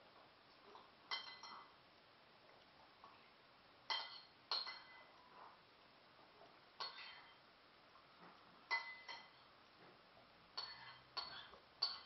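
A metal spoon clinking against a ceramic dish as someone eats, about nine short ringing chinks at irregular intervals, some in quick pairs.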